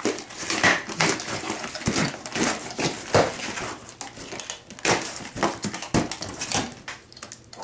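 Cardboard shipping box being opened by hand: its flaps are pulled apart and the box is handled, giving irregular rustles, scrapes and knocks of cardboard.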